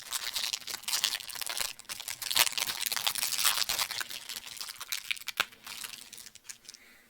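Plastic wrapper of a Cadbury Crunchie sponge toffee bar crinkling as it is torn open and handled, with a sharp click a little after five seconds in.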